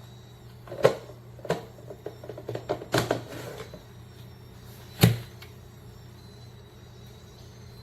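Handling sounds from objects being picked up and set down: a few separate clicks and light knocks, a quick run of small clatters about three seconds in, and one sharper knock about five seconds in, over a faint steady low hum.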